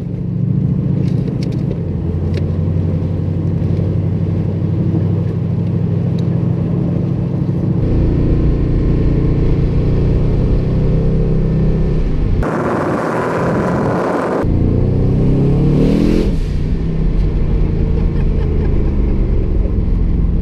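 Twin-turbocharged 427 cubic-inch LS V8 heard from inside the car's cabin: steady running at first, growing louder about eight seconds in, then a hard acceleration past the middle with a loud rushing sound and the engine note rising in pitch over a couple of seconds.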